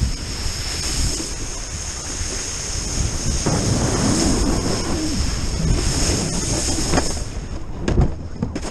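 Wind buffeting the action camera's microphone over the rush and spray of water off a wakeboard being towed across a lake, with a sudden louder burst near the end.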